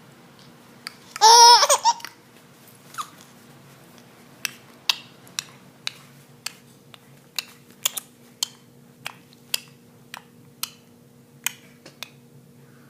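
A baby gives one short high-pitched squealing laugh a little over a second in. It is followed by a scattered string of short, sharp clicks or smacks, over a faint steady hum.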